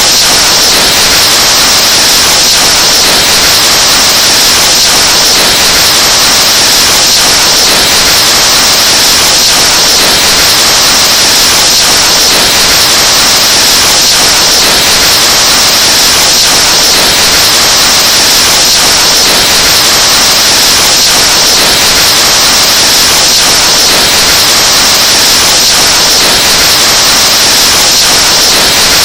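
Breath blown steadily into a microphone, overdriven into a very loud, distorted hiss like static that never lets up.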